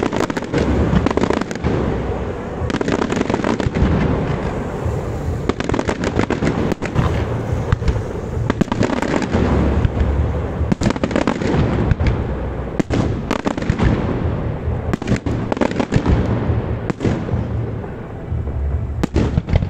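Fireworks display: aerial shells bursting in quick succession, many sharp bangs and crackles over a continuous low rumble.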